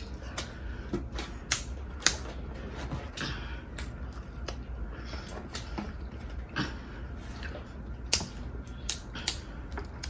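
Eating and food-handling noises during a seafood meal: scattered sharp clicks and small cracks, a few seconds apart.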